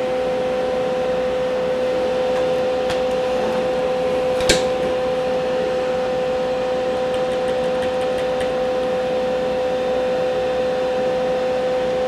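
Steady machinery hum with a constant two-note whine, and a single sharp click about four and a half seconds in, with a few faint ticks later.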